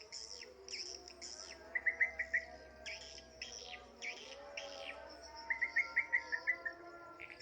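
Swiftlets twittering: repeated high, falling chirps, with two quick runs of dry clicks, one about two seconds in and a longer one near the end, the swiftlets' echolocation clicks.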